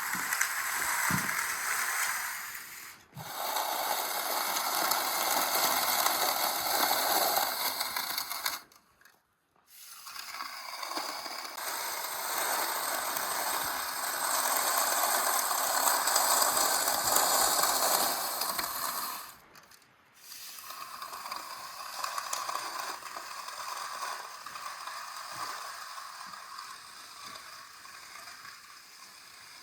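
Concrete finishing tools scraping across a freshly poured slab, a steady rasping noise heard in several short clips, with brief silent breaks between them about 3, 9 and 20 seconds in.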